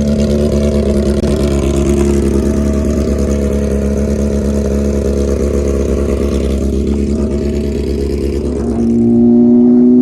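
Motorcycle engine running at a steady pitch while riding, with wind noise. Near the end the engine note steps up in pitch and gets louder.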